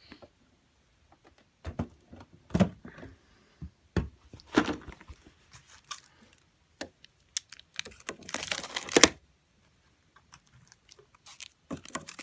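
Kit Kat bars and LEGO parts being handled while a LEGO vending machine is refilled: scattered clicks and knocks, with a denser rattling rustle lasting about a second around the middle.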